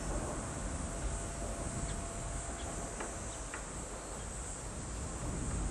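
Steady high-pitched buzzing of a summer insect chorus over a low steady rumble, with a few short chirps.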